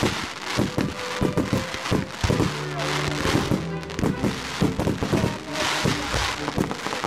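Fireworks going off in a rapid, irregular series of bangs and crackles, over music with held notes.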